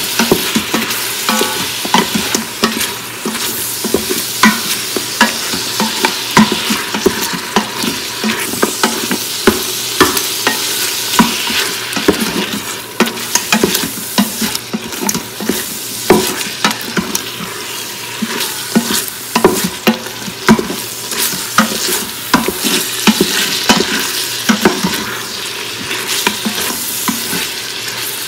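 Bone-in beef pieces with onion and spice masala sizzling as they fry in an Instant Pot's stainless steel inner pot, stirred with a spoon that clicks and scrapes against the pot over and over. The meat is being browned (bhuna) to drive off its raw smell.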